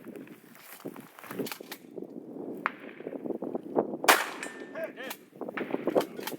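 Sharp metallic clanks and knocks, with one much louder bang that rings on about four seconds in.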